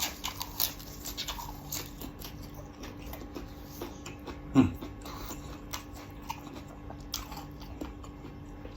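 A person eating rice-noodle beef soup close to the microphone: chewing with many small mouth clicks and smacks. About four and a half seconds in comes a single short vocal sound that falls in pitch, the loudest moment.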